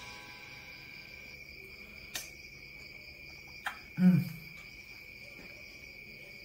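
Quiet room with a steady high-pitched whine, two light clicks, and a short 'mm' of approval from a man tasting food about four seconds in.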